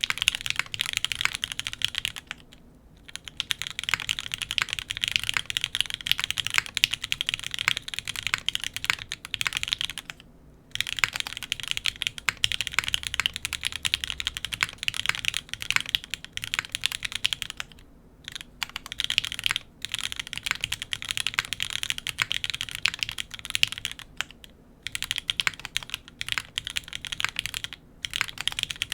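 Fast typing on a custom F1-8X mechanical keyboard with Bowl x Gateron L'Orange linear switches on an FR4 plate, unlubed and with no foam, under GMK keycaps: a dense clatter of keystrokes broken by a few short pauses.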